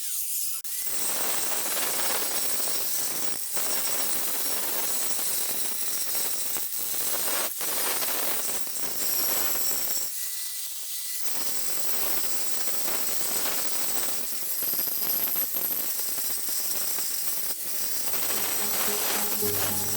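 Steady rasping, scraping noise of rust being worked off the hoe's steel blade, with a couple of short breaks.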